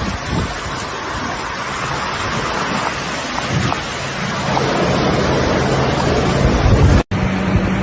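Loud rushing noise of floodwater and wind buffeting the microphone, with a low steady hum joining about halfway. The sound cuts off abruptly near the end.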